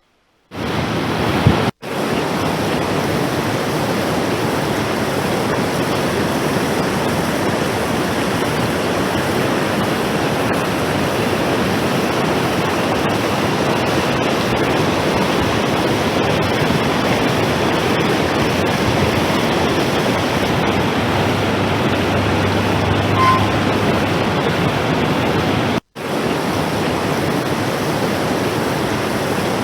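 Floodwater rushing, a loud, steady sound of pouring water. It cuts out for an instant about two seconds in and again a few seconds before the end.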